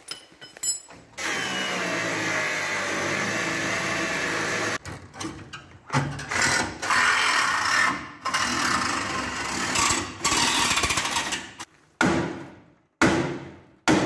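Handheld power tool working on the rusted steel of a Land Rover Series 1 chassis, run in bursts: one long run of about four seconds, then three shorter bursts. Near the end come three sharp knocks, each dying away over about a second.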